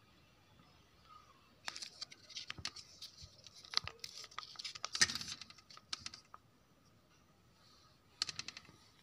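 Plastic squeeze pouch of tandoori mayo crinkling and crackling as it is handled and squeezed onto bread, in an irregular run of small crackles from about two seconds in to about six seconds in, then a short burst of crackles near the end.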